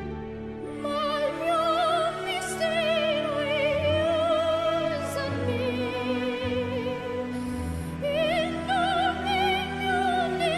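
A young girl singing in operatic style, holding high notes with a wide, even vibrato over a steady classical-style backing accompaniment.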